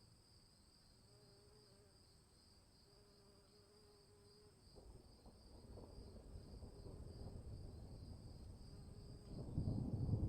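Insects chirring steadily and high-pitched, then a low rumble of thunder sets in about halfway through, builds, and turns loud near the end.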